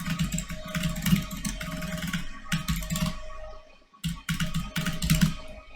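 Typing on a computer keyboard: quick runs of key clicks, with a short pause about four seconds in.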